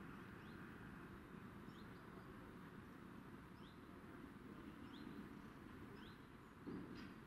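Near silence: a faint low rumble with a small bird's short rising chirps, repeated every second or so, and a brief low thump near the end.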